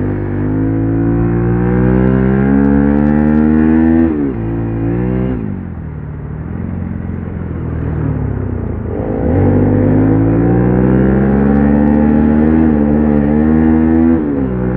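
Motorcycle engine accelerating through the gears. Its pitch climbs and drops sharply at a gear change about four seconds in, then falls away for a few seconds as it slows. It climbs again, with another shift near the end.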